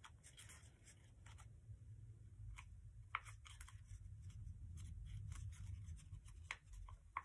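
Sheet of paper being folded and creased by hand into an inside reverse fold: faint crinkling with scattered small ticks.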